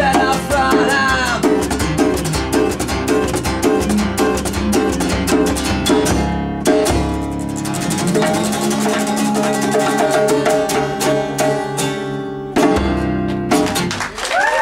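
Live acoustic rock band playing the closing instrumental stretch of a song: strummed acoustic guitar and drums, breaking off briefly near the end before a final chord rings out.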